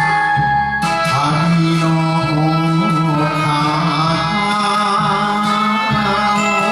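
Enka song playing: a wavering melody line with vibrato over a steady bass accompaniment.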